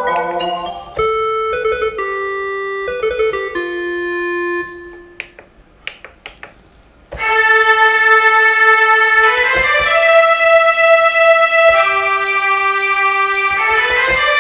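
Yamaha PSS-F30 mini keyboard being played: a string of single held notes, then a quiet gap of about two seconds with a few short clicks. From about seven seconds in come loud sustained chords that change every couple of seconds.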